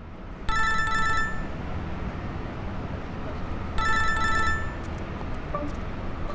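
Mobile phone ringing twice, about three seconds apart. Each ring is roughly a second of trilling electronic tone, over a steady low background rumble.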